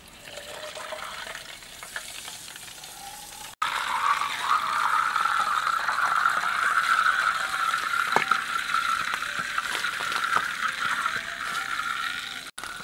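Coca-Cola sizzling and fizzing in an open can as a blackened metal object is pushed into it, the cola bubbling up around the metal. A softer hiss at first turns into a loud, steady crackling sizzle about three and a half seconds in.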